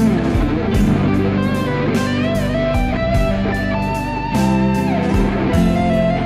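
Strandberg Boden seven-string electric guitar playing a lead melody of sustained notes with bends and vibrato, over a backing track with drums and bass.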